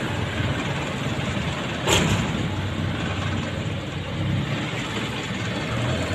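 Street traffic: motorcycle and car engines running steadily as vehicles pass, with one brief sharp noise about two seconds in.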